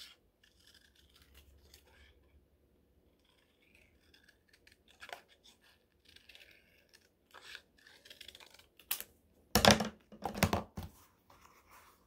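Scissors snipping through white paper, cutting out a heart shape in scattered, faint snips. About nine to eleven seconds in come a few much louder knocks and rustles as the paper and scissors are handled and the scissors are laid on a glass tabletop.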